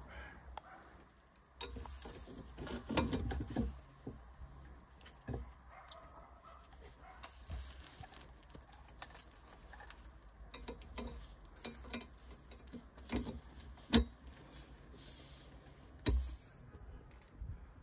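Steel chains clinking and knocking against the iron hooks on the rim of a clay tandoor as whole chickens are hung over the coals: scattered sharp metallic clinks, a cluster of them about three seconds in and the loudest one well into the second half.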